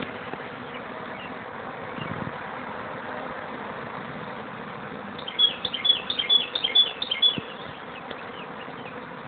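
Steady buzzing hum of a large honeybee swarm, with a run of quick high chirps about five seconds in lasting some two seconds.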